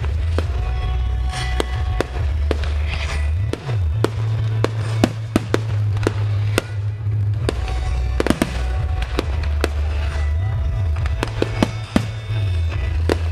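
Aerial firework shells bursting: an irregular string of sharp bangs and crackles, sometimes several in quick succession. They sound over loud music with a heavy, steady bass.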